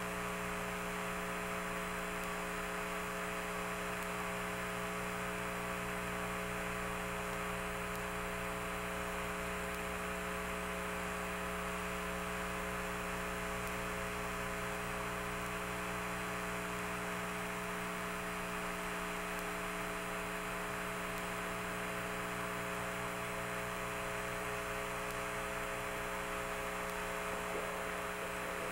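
Steady electrical hum and hiss, several fixed tones held unchanged throughout, with no other sounds.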